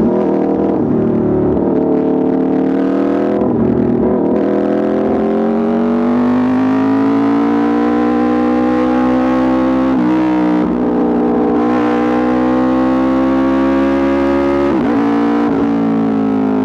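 Aprilia RSV4 RR's V4 engine running hard through an Austin Racing exhaust. It is a loud, steady engine note whose pitch climbs slowly, with brief breaks about 4, 10 and 15 seconds in.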